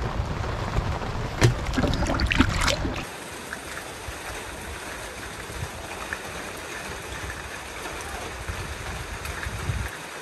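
Rain falling: loud, low rumbling noise with several sharp knocks for the first three seconds, then an abrupt drop to a quieter, even hiss of rain for the rest.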